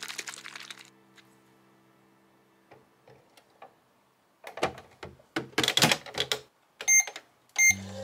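Toy microwave being loaded and started: hard plastic clicks and clatter as a plastic sippy bottle is set inside and the door is shut, then two short electronic beeps as its buttons are pressed.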